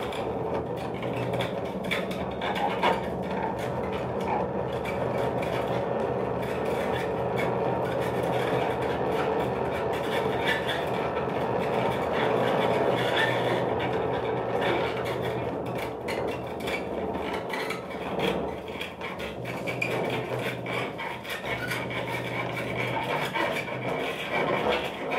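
Cello bowed into a dense, grainy, scraping sound, with steady low tones running underneath.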